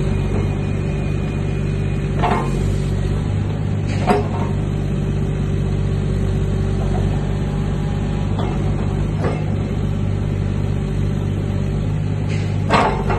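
JCB 8030 ZTS mini excavator's diesel engine running steadily while the boom, arm and bucket are worked, with a few short sharp knocks, the loudest near the end.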